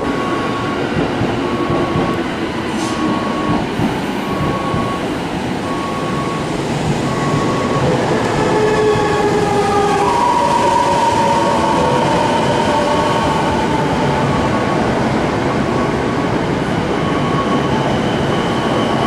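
Odakyu electric train running into the platform, its wheels rumbling on the rails. Several electric motor whines step and shift in pitch midway through. A short electronic beep repeats steadily, about once every second and a half.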